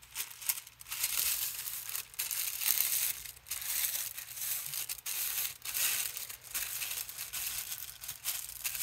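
White art tissue paper (Art Spectra) rustling and crinkling in irregular strokes as hands spread it out and smooth it flat over a paint-inked gel printing plate.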